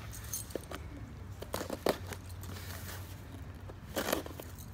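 House keys scraping and tearing at the packing tape and cardboard of a shipping box, in short scratchy scrapes and rips with small clicks between them.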